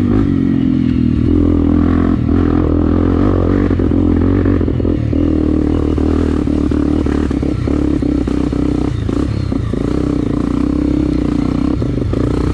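Trail motorcycle engine running steadily at a fairly even throttle, with scattered clattering knocks from the bike riding over stones.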